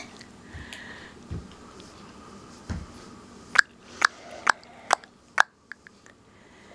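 A run of five sharp tongue clicks, about two a second, starting a little past halfway through, followed by a couple of fainter clicks.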